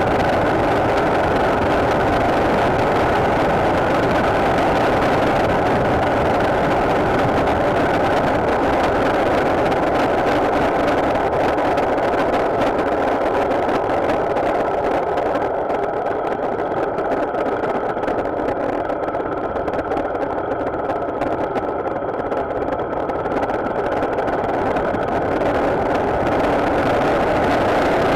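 Motorcycle under way: the engine runs steadily under a constant rush of wind and road noise. The sound eases a little for several seconds past the middle, then comes back up.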